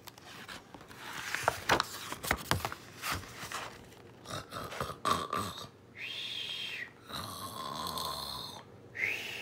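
A picture-book page turning with paper rustles and clicks, then a person making a mock snore: a high whistling breath, a longer rasping breath, then another whistle near the end.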